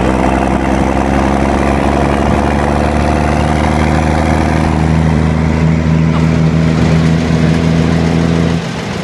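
M35 2½-ton military cargo truck's engine idling steadily; the sound drops away shortly before the end.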